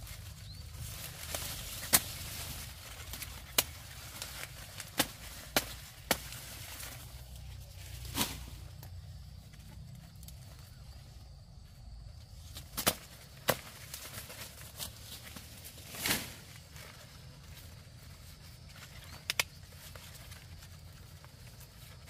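A series of about ten sharp, irregularly spaced cracks over a faint low hum, the loudest about two seconds in.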